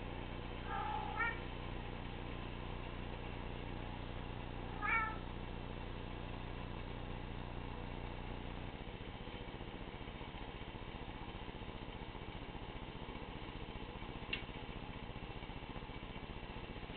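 Domestic cat giving two short, rising meows about four seconds apart, the second one the louder.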